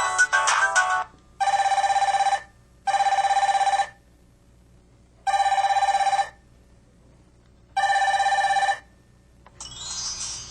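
A PH-K1000V mobile phone playing an electronic telephone-ring ringtone through its speaker: a warbling ring tone sounds four times, about a second each. The last notes of a melody end in the first second, and a different tone starts near the end.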